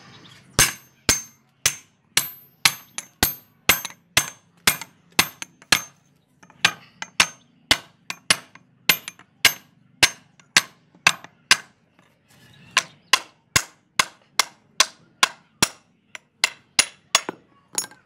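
Hand hammer striking the old grub hoe's wooden handle on a railroad-rail anvil, about two sharp blows a second, knocking the handle free of the hoe's rusted socket. The first several blows ring with a high metallic tone.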